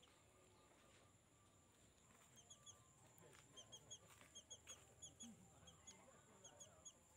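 Faint, high bird chirps in quick runs of two or three, repeating about once a second from a couple of seconds in until near the end, over a quiet background with a few faint rustles.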